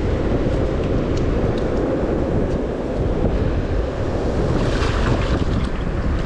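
Wind buffeting the microphone in a steady low rumble, with shallow surf washing in around the feet in a hissing rush about four and a half seconds in.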